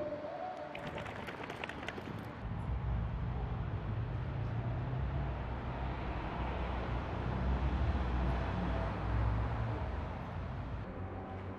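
Outdoor ambient noise from a walking field recording: a steady low rumble, with a short run of faint clicks about a second in.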